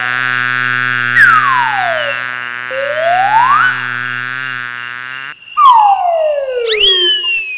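Cartoon sound effects: a steady buzzing drone overlaid with slide-whistle glides, first one sliding down, then one sliding up. The drone cuts off about five seconds in and is followed by a falling glide and a run of quick descending whistle glides, the comic sound of a fall.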